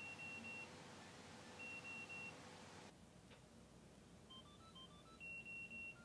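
Mint Bluetooth tracker ringing faintly from under clothes in a laundry basket, just barely audible: a repeating electronic ringtone of short runs of stepped notes and sets of three quick high beeps.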